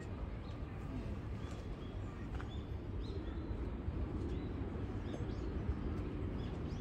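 Outdoor ambience: a steady low rumble with short, high bird chirps every second or so and faint distant voices.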